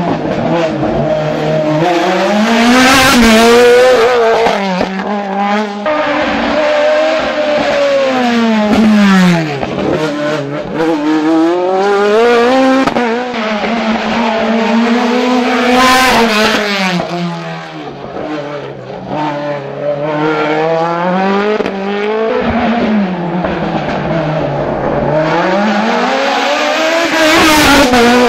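Sport prototype race car engine revving hard and dropping again and again as the car accelerates, shifts and brakes through tight slalom chicanes. It is loudest about three times as it passes close by.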